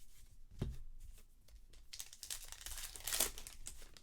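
Trading card pack wrapper being torn open and crinkled, with a soft thump about half a second in.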